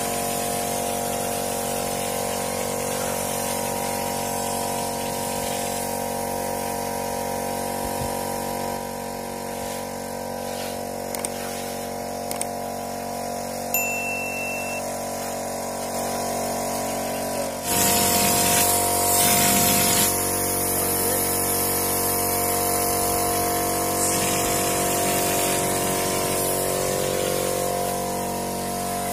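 A hopper spray gun driven by an air compressor spatters decorative plaster onto a wall. The compressor hums steadily under the hiss of the air, and the hiss gets louder about two-thirds of the way through.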